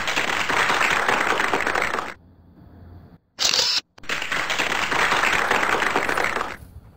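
Applause, dubbed in, in two bursts of a couple of seconds each with a short break between.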